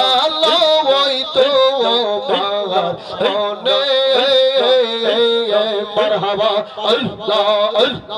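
A man singing a Bengali murshidi devotional song for zikir, holding long notes with a wavering pitch.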